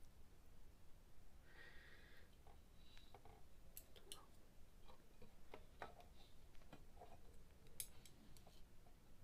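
Faint, scattered clicks of chopsticks tapping the pan and the rice bowl as food is picked up, over quiet room tone.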